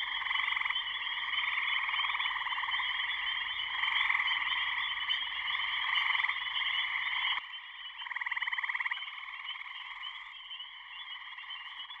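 Gray treefrogs calling: short, musical, pulsed trills, each under a second long, repeating every second or two over a steady chorus of frogs.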